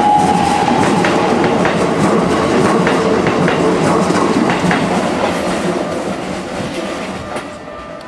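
Keikyu 1000 series electric train passing close by: a loud rumble of wheels on rail with sharp clickety-clack as the bogies cross rail joints. A high whine fades in the first second or two, and the sound dies down over the last few seconds as the train moves away.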